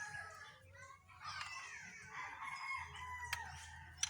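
Rooster crowing: the tail of one crow, then a long crow about a second in that falls in pitch toward its end.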